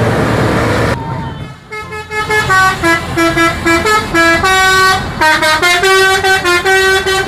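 A vehicle's musical horn playing a quick tune of short, sustained notes, after about a second of noisy vehicle rumble.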